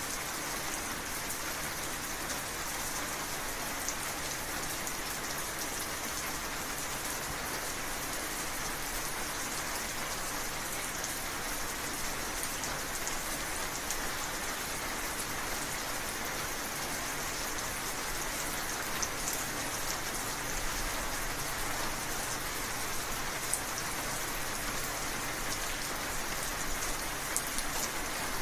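Steady heavy rain falling, with a few sharper drop ticks now and then.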